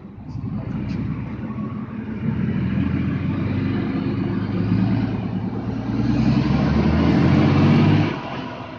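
A motor vehicle's engine running close by, building up and loudest near the end before dropping away sharply.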